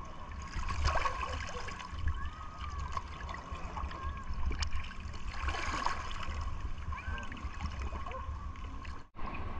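Sea water sloshing and lapping in small waves close to a microphone held at the waterline, with irregular splashing as people wade and pay out a net.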